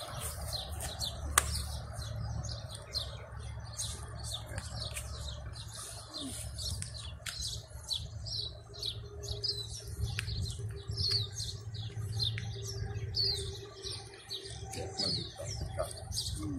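Many small birds chirping continuously in a busy chorus, over a low steady rumble.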